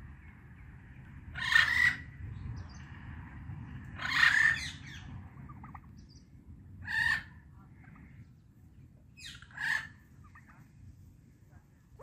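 Indian ringneck parakeet giving short, harsh squawks, one every two to three seconds, with the last two in quick succession.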